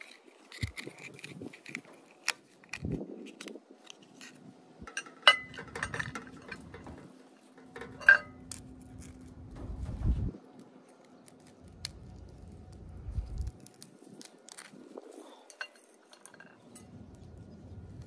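Raw oysters being shucked with a knife: irregular scraping, clicks and clinks of shell and blade against a ceramic plate as the knife cuts the adductor muscle, the two sharpest clinks about five and eight seconds in, with dull rumbles of handling between them.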